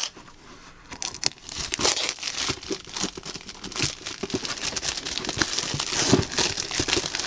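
Clear plastic shrink-wrap being peeled and torn off a cardboard model kit box: dense, irregular crinkling and crackling of the film, starting about a second in.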